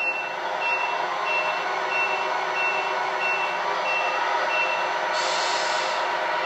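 A radio-controlled Scania R620 tractor unit's electronic sound module plays a diesel engine idling with a reversing beeper, eight short high beeps at about one and a half a second. About five seconds in, a brief air-brake hiss follows.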